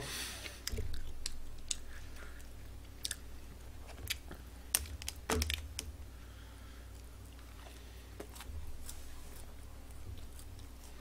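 Eating fast food close to the microphone: soft chewing, with scattered sharp clicks and crinkles from handling the food and its paper wrappers.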